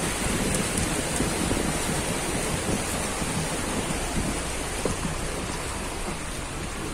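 A car driving slowly through deep floodwater, heard from inside the car by the open window: a steady rush and splashing of water around the wheels.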